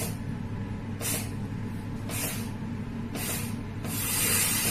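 ATI 5D thermal aerosol generator hissing as pressurised gas carries aerosol out of its output port, over a steady low hum. The hiss comes in short spurts about once a second, then runs continuously and louder near the end.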